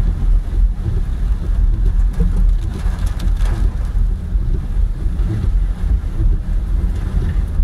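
Car driving on a wet, water-covered road in heavy rain, heard from inside the cabin: a steady low rumble of the car and tyres with rain on the body.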